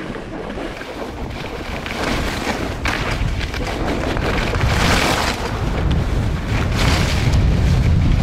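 Wind buffeting the microphone during a ski descent, with surges of skis hissing over snow about every two seconds.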